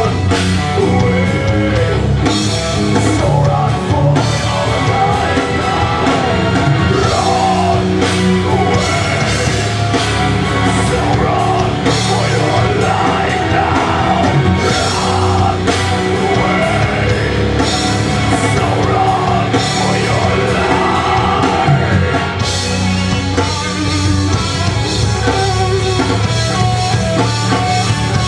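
Rock band playing live on stage: electric bass, electric guitars and drums, with a singer's voice over them.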